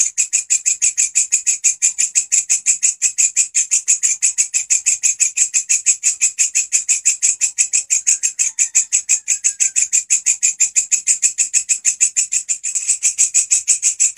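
Walang kecek katydid stridulating in a fast, even series of shrill pulses, about eight or nine a second, that run on without a break. The call dips slightly in loudness briefly near the end.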